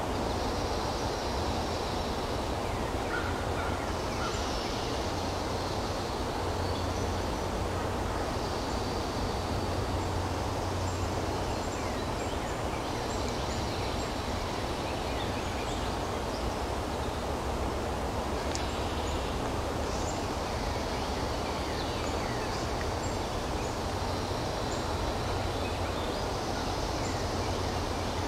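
Woodland ambience: a steady rushing background noise with a small bird singing a short high phrase every few seconds, and scattered faint high chirps.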